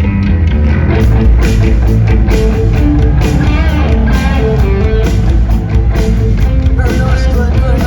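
Live punk rock band playing loud: electric guitar over bass and drums.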